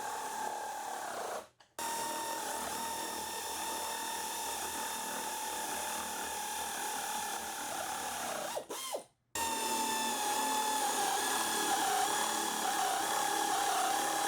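Power drill driving fasteners during table assembly, a steady motor whine that stops briefly twice, about a second and a half in and again about nine seconds in, its pitch sagging a little under load.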